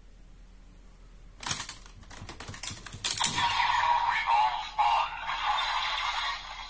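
Hard plastic clicks as a Desire Driver toy belt is gripped and turned by hand. About three seconds in, its small built-in speaker starts playing electronic sound effects and music, which run on for several seconds.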